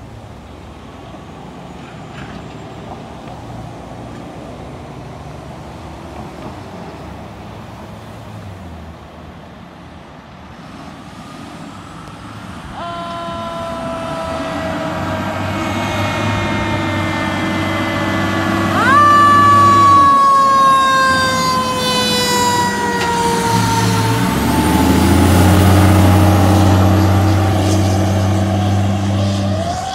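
Fire department ladder truck pulling out on an emergency call. First the diesel engine rumbles low. Then the siren wails, rising and falling slowly, rising sharply again about two-thirds of the way in, with two long air horn blasts as the truck passes.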